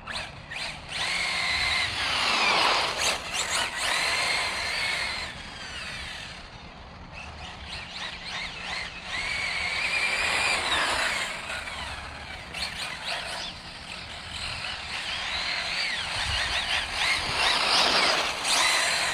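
Losi 8ight-E electric RC buggy's stock 2650 brushless motor whining as the car accelerates hard and backs off several times, the pitch rising and falling with each run.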